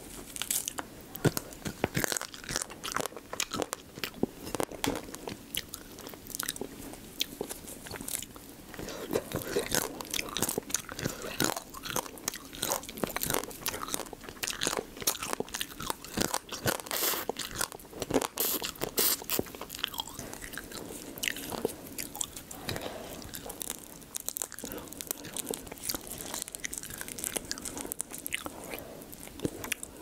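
Close-miked eating of raw marinated crab (gejang): a dense stream of small crunches and cracks as the soft, easily broken shells are bitten and chewed.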